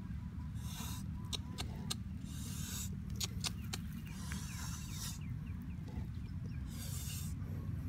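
A plastic spoon clicking and scraping in small coconut-shell bowls as food is mixed and the bowls are handled, with several short rustles. A steady low rumble runs underneath.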